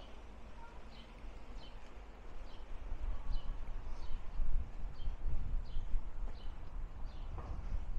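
A small bird repeating a short, high, falling chirp roughly every half second to second, over low rumble from wind on the microphone that grows louder partway through.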